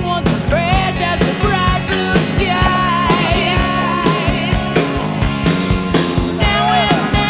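Rock music with a wavering lead melody over a steady drum beat.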